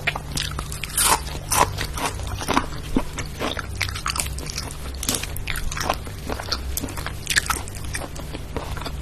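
Close-up chewing and biting of crunchy food, with many sharp crunches several times a second.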